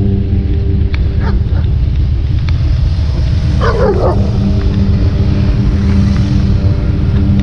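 Dog barking: a few short barks about a second in, then a louder burst of barking about three and a half seconds in, over a steady drone.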